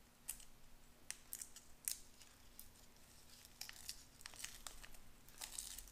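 Paper-and-foil wrapper of a small roll of Charms hard candies being picked and peeled open by hand: faint, scattered crinkles and small ticks, busier near the end.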